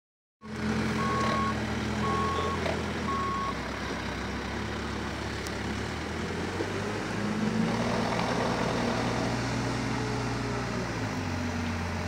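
Diesel engines of a dump truck and crawler excavators running steadily, with a reversing alarm beeping three times, about a second apart, in the first few seconds. The engine note shifts about halfway through.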